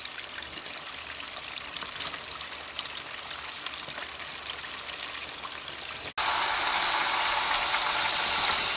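Battered chicken wings deep-frying in hot oil: a steady hiss with small crackling pops. About six seconds in there is an abrupt cut to louder, denser sizzling.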